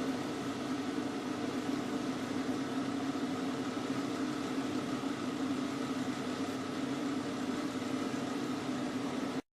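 Microwave oven running with a steady hum, a CD heating inside. The sound cuts off suddenly near the end.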